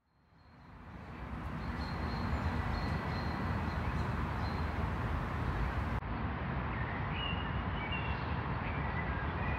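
Steady road and wind noise from a moving vehicle on a highway, fading in over the first second or so. A few short, high bird calls come near the end.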